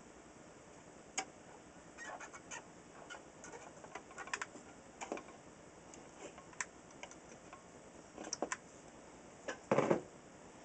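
Needle-nose pliers working the wire leads on a radio chassis: scattered, irregular light clicks and ticks, with a louder scrape and rustle near the end.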